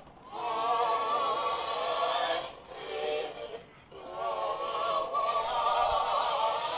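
Singing from a vinyl record playing through a cheap portable turntable's small built-in speaker. The sound is thin with no bass, and the wavering held notes break off briefly twice in the middle.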